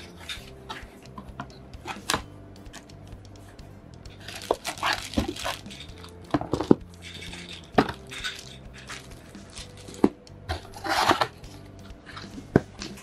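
Cardboard box being opened and its flaps and paper insert handled: scattered sharp knocks and taps, with a few short bursts of rustling, over soft background music.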